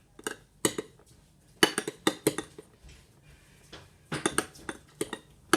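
A utensil clinking and scraping against a dish as slime mixture is stirred, in irregular clusters of sharp clinks. The mixture is starting to thicken.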